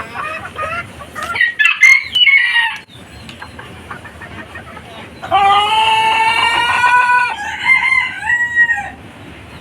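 Chickens clucking and squawking, then a rooster crowing one long crow about five seconds in.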